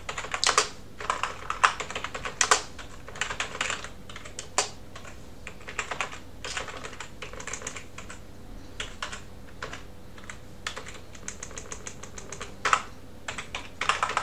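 Typing on a computer keyboard: quick, irregular runs of keystroke clicks, thinning out in the middle and picking up again with a few harder strokes near the end.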